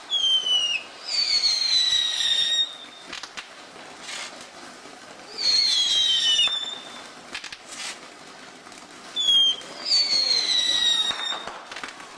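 Whistling fireworks shrieking: five shrill whistles, each dipping slightly in pitch, the longer ones lasting about a second and a half.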